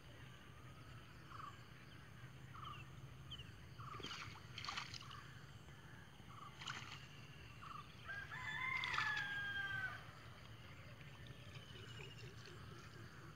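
A rooster crows once, faintly, about eight seconds in. This call lasts nearly two seconds and is the loudest sound. Before it come scattered short bird chirps and a few brief clicks, over a low steady hum.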